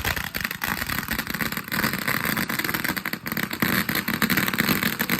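A lit firework going off: a steady hiss with dense, rapid crackling throughout.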